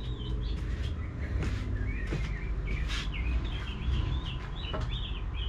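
Birds chirping: a run of short, high twittering calls that come thickest near the middle, over a steady low rumble.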